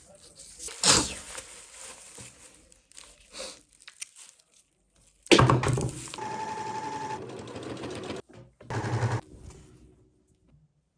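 Sewing machine stitching velvet: a steady, fast run of stitches with a faint whine for about two seconds in the middle, between louder knocks and rustles of handling the work.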